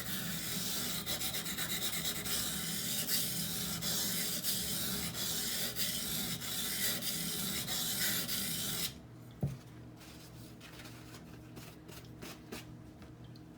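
A 20CV steel knife blade being ground on a wet, coarse 220-grit Norton water stone: a steady gritty scraping made of quick strokes, raising a burr on the edge. The grinding stops suddenly about nine seconds in, and a few light clicks follow.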